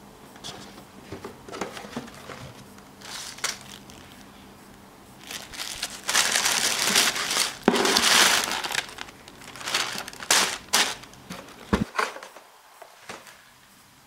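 Tissue paper crinkling and rustling as hands dig through a cardboard shoebox, loudest in the middle. Near the end come a few sharp taps and one low thump.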